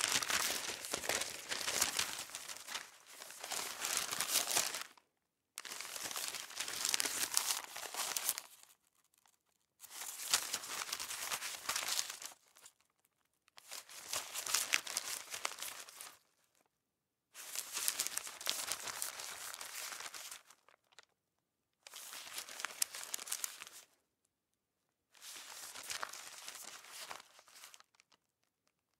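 A sheet of newspaper being handled and crumpled: crinkling, rustling paper in bursts of two to three seconds, each cut off abruptly by a short silence.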